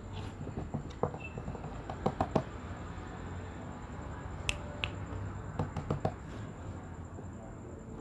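Sharp finger clicks from a hand playing with a kitten: a quick run of them about two seconds in and another cluster around five to six seconds in.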